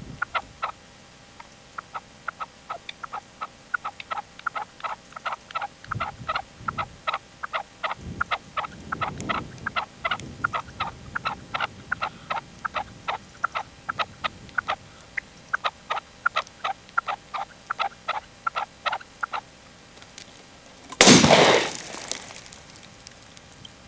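Red-legged partridge calling in a long run of short, clipped notes, about three a second. Then a shotgun shot about 21 seconds in, the loudest sound, with a short ringing tail.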